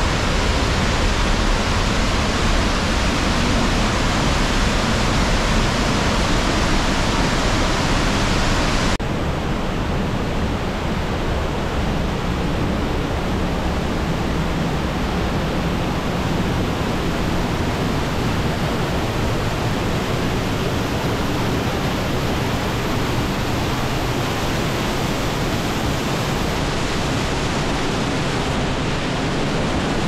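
Kaminari Falls, a waterfall swollen by the previous day's rain, pouring in a steady, loud roar. About nine seconds in, the sound changes abruptly to a slightly quieter, duller rush.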